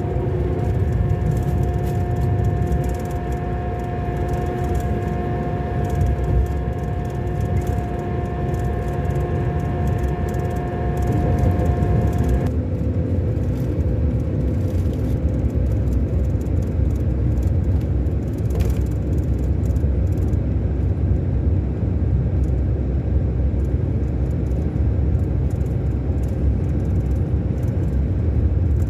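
Scania K-400 Euro 5 coach engine running with a steady low rumble. A whine of several steady tones over it stops abruptly about twelve seconds in, leaving a fainter, lower tone.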